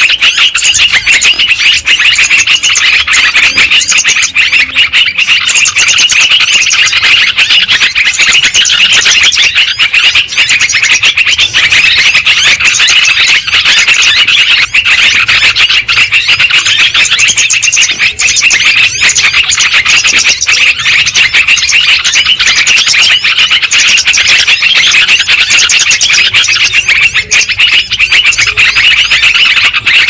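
Dense, unbroken chorus of many yellow-vented bulbuls chirping and chattering over one another: a bird-trapping lure recording meant to draw wild bulbuls in.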